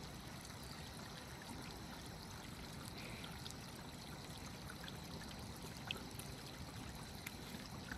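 Faint, steady trickle of water running down a rocky gully, with a couple of small clicks.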